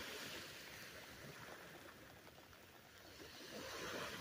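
Faint surf washing onto a sandy beach, swelling twice: at the start and again near the end.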